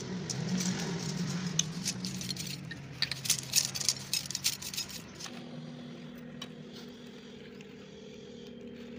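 Light metallic clicking and rattling as a new aluminium piston and its rings are handled and turned in the hands, loudest in a quick cluster about three to four and a half seconds in. A steady low hum runs underneath and is left alone after about five seconds.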